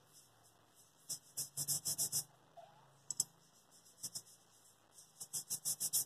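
A scouring pad scrubbing back and forth over the soleplate of a Philips steam iron to clean off grime, in quick rasping strokes. A short run comes about a second in, and a longer run of several strokes a second comes near the end.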